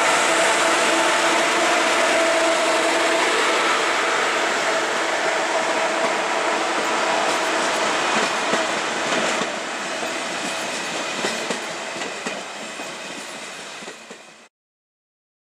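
ICE high-speed train's passenger cars rolling past along the platform, a steady rolling rush with a hum that fades over the first few seconds. From about halfway the wheels clack over rail joints as the sound slowly dies away, and it cuts off about a second before the end.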